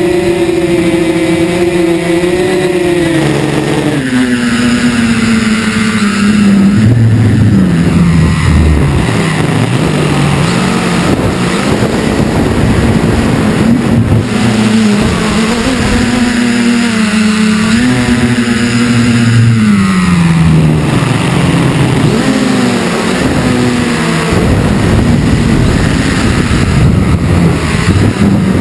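Multirotor drone's electric motors and propellers buzzing loudly, heard close from its onboard camera. The buzz is higher for the first few seconds, then drops and keeps climbing and dipping in pitch as the throttle changes.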